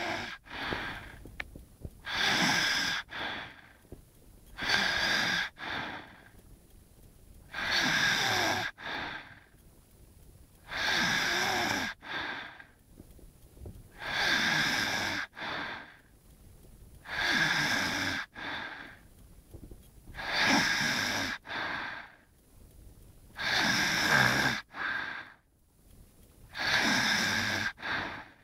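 A sleeper snoring: a noisy breath about every three seconds, each a longer pull followed by a short second puff, with a thin whistling tone running through it.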